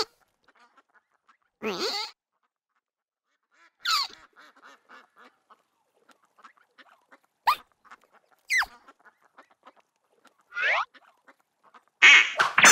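Duck quacking: short single calls, each falling in pitch, spaced a second or more apart, then a louder, harsher burst near the end.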